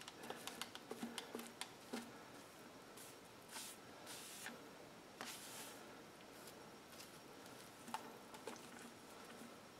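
Faint rubbing swishes and scattered light clicks and taps of hand-buffing polishing compound on a plastic tail-light lens.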